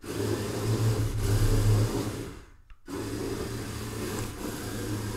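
Small yellow DC gear motors of a six-wheeled rover robot running at turbo speed, its wheels driving over a wooden floor. The motors stop for a moment about two and a half seconds in, then start again.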